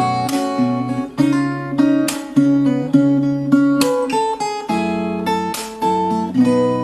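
Acoustic guitar strung with F-Strings A01 .011–.052 strings, playing a sequence of strummed chords that ring out and change about once a second.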